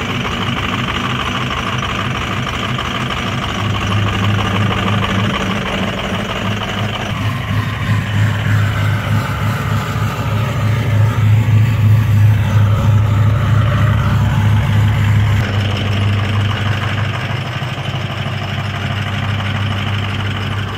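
Straight-piped 2003 Ford F-350 6.0-litre Power Stroke V8 turbo-diesel idling loud just after a cold start. It runs steadily with a fast, rough pulsing exhaust note, and its sound shifts about fifteen seconds in.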